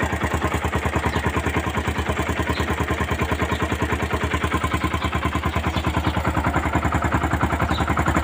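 Yamaha SZ 150's single-cylinder four-stroke engine idling with a steady, even pulse while its charging voltage is measured at the battery.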